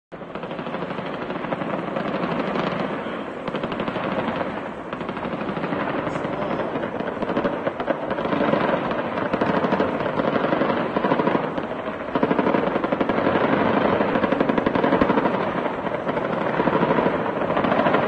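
Sustained automatic machine-gun fire in long rapid bursts, with a few brief lulls.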